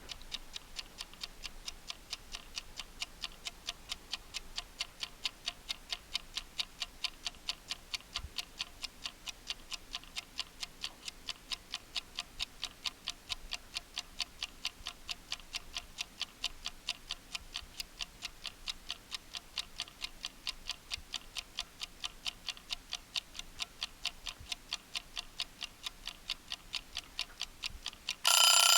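Timer ticking steadily, about three ticks a second, counting down; near the end it goes off with a loud ringing alarm.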